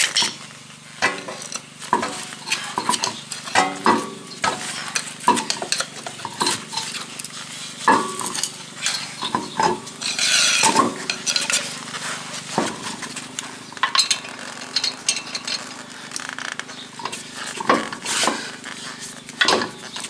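Irregular metallic clinks and knocks as an alloy wheel is fitted back onto the hub and its lug nuts are handled and started on the studs by hand.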